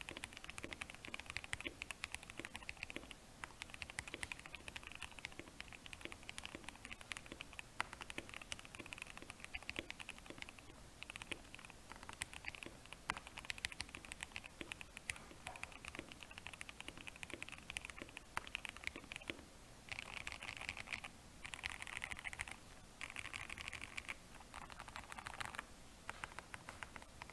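Continuous typing on a KBD67 Lite custom mechanical keyboard fitted with Alpaca V2 linear switches, GMK Modo clone keycaps and a tape mod. Keystrokes come in rapid runs, growing faster and denser in the last third.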